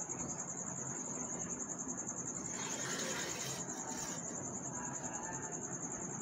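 Steady high-pitched insect trill over low background noise, with a brief rustle about two and a half seconds in.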